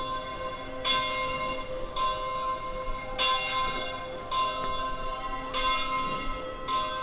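A church bell tolling steadily, about six strikes a little more than a second apart, each ringing on with several steady tones until the next.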